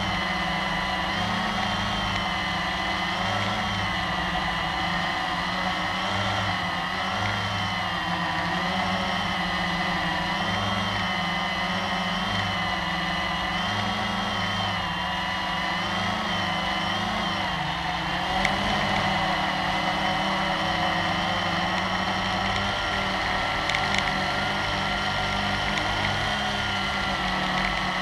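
Blade 350QX quadcopter's four brushless motors and propellers running in flight, heard from a camera mounted on the drone. The whine has several tones that waver up and down together as the motor speeds are trimmed, and gets slightly louder a little past halfway.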